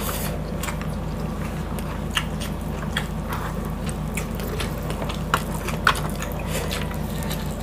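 Mukbang eating sounds: two people chewing pork and rice with their mouths, giving scattered wet smacks and clicks, over a steady low hum.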